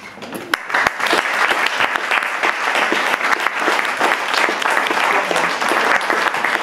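Small audience applauding: many hands clapping, starting abruptly and filling out within the first second into steady, loud applause at the end of a poetry reading.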